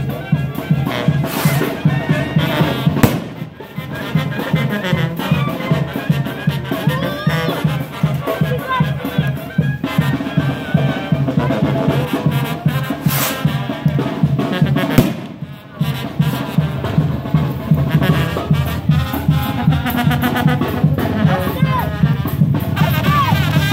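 Brass band music, horns playing over drums, dropping away briefly twice.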